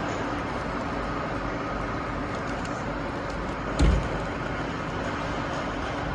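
Steady machinery noise of a factory floor with a faint hum running through it, and one dull thump a little under four seconds in.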